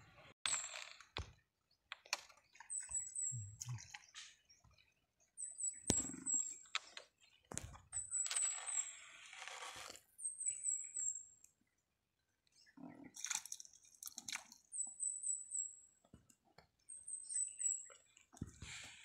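A small bird's thin, high chirps, short falling notes in quick runs of two to four that repeat every couple of seconds, over scattered clicks, knocks and rustles of a bamboo fishing pole and line being handled.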